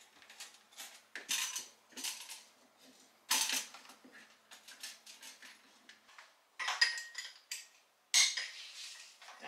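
Glass jars, bottles and plastic fridge parts clinking and knocking as things are moved about inside a refrigerator, in a scattered series of short, sharp clinks.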